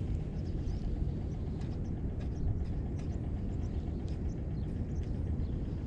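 Steady low rumble of wind on the microphone, with faint irregular ticks higher up.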